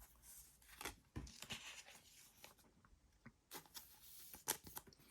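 Faint rustling and light taps of Pokémon trading cards being handled: a handful of short, scattered sounds with a quieter stretch in the middle.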